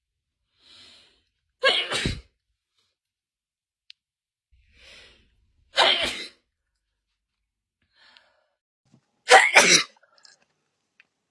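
A person sneezing three times, about four seconds apart, each sneeze preceded by a short audible in-breath; the last sneeze is the loudest. It is a hay-fever sneezing fit, part of an allergic attack.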